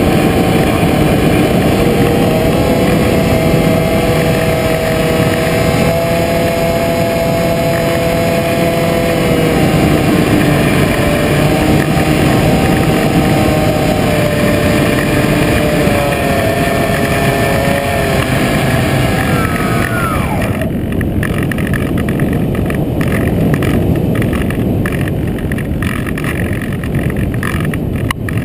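Radio-controlled model plane's motor and propeller, heard from a camera on board, running at a steady pitch over rushing wind noise. About twenty seconds in the pitch falls away as the throttle is closed for the landing approach, leaving wind rush and rumble.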